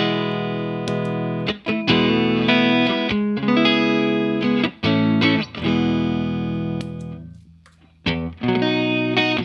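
Clean Fender Stratocaster through a Vox AC30 amp, played through a Keeley 4-knob compressor pedal: chords and single notes ringing out evenly. About seven seconds in one chord is left to die away almost to nothing before the playing starts again.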